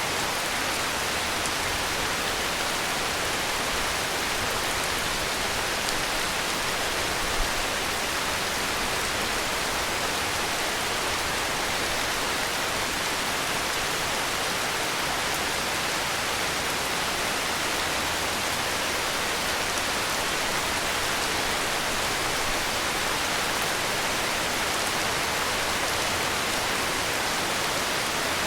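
Heavy rain falling steadily, an even hiss with no lulls, and one brief tap about seven seconds in.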